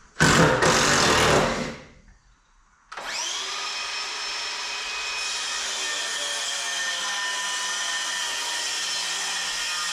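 A power tool runs in one loud burst of about a second and a half. After a second's pause an electric motor spins up and runs steadily with a whine.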